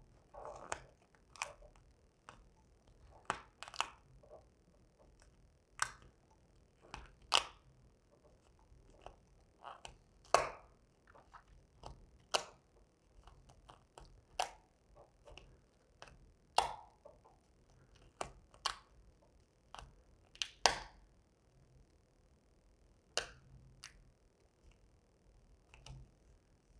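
3M 1080 satin vinyl wrap film crackling and snapping as it is pulled back and smoothed onto a metal grill bar by hand. Irregular sharp crackles every second or two, with a few louder snaps.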